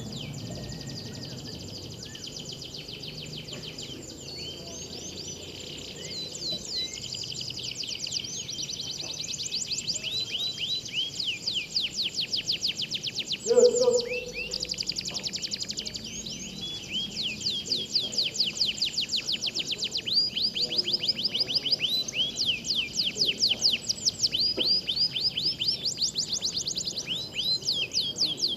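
Canary song: long, fast trills of rapidly repeated high notes, continuous and growing louder from about six seconds in. About halfway through, a brief lower-pitched sound cuts in and is the loudest moment.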